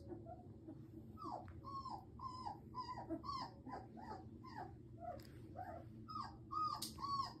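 Two-week-old German Shepherd puppy whimpering: a run of short, high cries, about three a second, each rising and then falling in pitch, starting about a second in.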